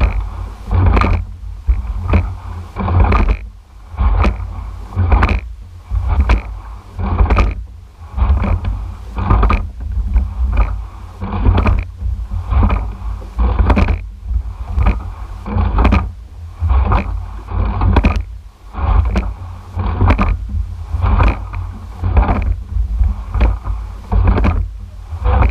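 An eight-oared rowing shell under way, heard from the rigger: a cycle about every two seconds of knocks and rattles as the oars work in the oarlocks and the seats roll, over rushing water and a heavy low rumble.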